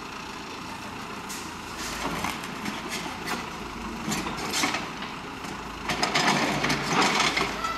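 Caterpillar backhoe loader's diesel engine running while its bucket tips a load of soil and broken concrete into a dump truck's steel bed, with rattling and clatter of rubble falling, most intense near the end.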